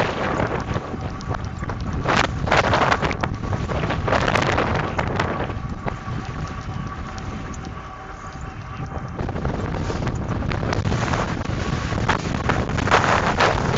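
Wind buffeting the microphone while riding a Lectric XP 2.0 e-bike over rough ground, with a faint steady whine under it. The rush swells twice, a few seconds in and again near the end, and eases in the middle.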